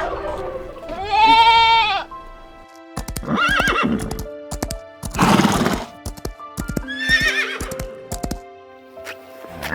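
Four or five short animal calls, some arched and pitched, one rough and noisy, over steady background music.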